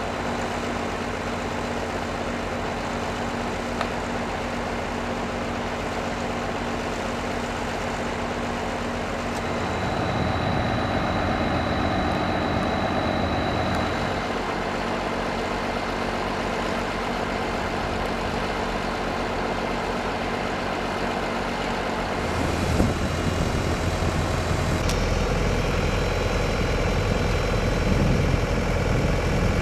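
Heavy diesel engines of an excavator and farm tractors running steadily, a low engine hum. The sound gets louder and changes about ten seconds in, and again about twenty-two seconds in.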